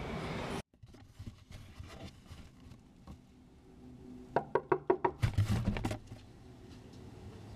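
A quick run of about eight knocks on a door, followed by a short burst of rustling handling noise.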